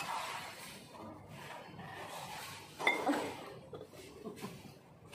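Tableware clinking during a meal: chopsticks and spoons knocking against ceramic bowls and glasses, with a few light clicks and one sharper ringing clink about three seconds in.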